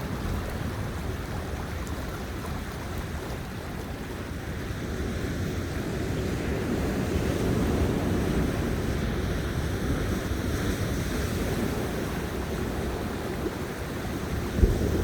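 Sea waves washing on a beach and sea breeze rumbling on a Samsung S20 Ultra's built-in microphone, a steady low rush that swells a little partway through. There is a sharp bump near the end.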